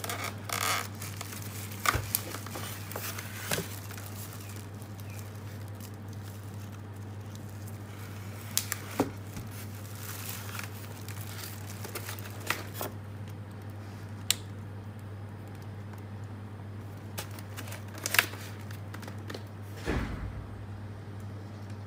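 Unpacking handling noise from a boxed LED magnifier lamp: plastic wrap and foam packing crinkling and rustling, with scattered sharp clicks and knocks of the lamp's plastic parts, the loudest a little before the end. A steady low hum runs underneath.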